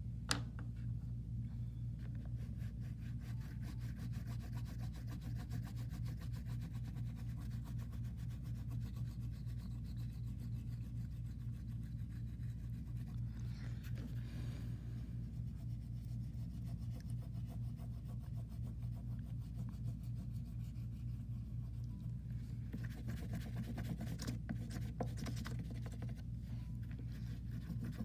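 Oil pastel stick rubbing and scratching on paper as colour is laid down and blended, heard faintly over a steady low hum.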